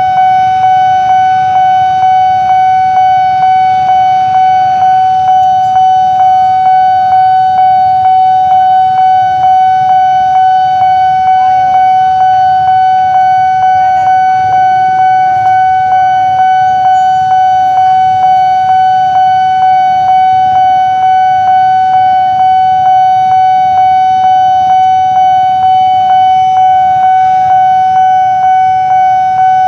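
Railway level crossing warning alarm ringing continuously: a loud electronic tone struck about twice a second, signalling that a train is approaching and the barrier is down.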